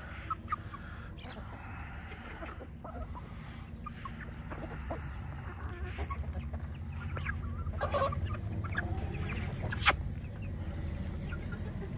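Chickens clucking softly as they feed, over a low steady rumble, with one sharp click about ten seconds in.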